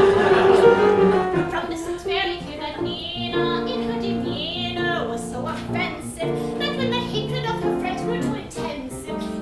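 Live piano accompaniment with a woman singing a cabaret song: a loud held note at the start gives way about a second in to piano chords under shorter, wavering vocal phrases.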